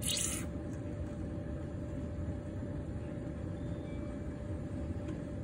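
Steady low background rumble with a faint constant hum, and a brief hiss at the very start.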